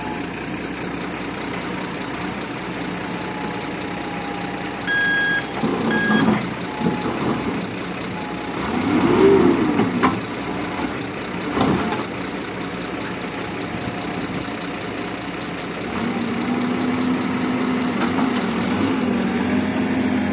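CAT backhoe loader's diesel engine running, revving up and back down a few times as the boom works, with the loudest rev about nine seconds in. Two short beeps sound about five seconds in, and a single knock comes near twelve seconds.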